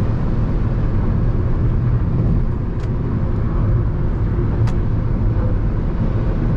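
Steady rush of wind and road noise inside a Jeep Renegade T270's cabin at highway speed, between about 120 and 140 km/h. The wind noise is very loud at this speed, for a reason the driver does not know. Two faint short ticks come about two seconds apart near the middle.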